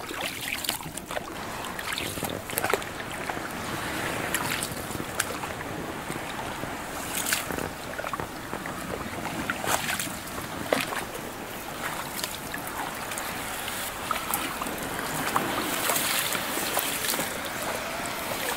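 Wooden paddle dipping and splashing in shallow water among lily pads and reeds, with irregular knocks and rustles as the small boat pushes through the vegetation.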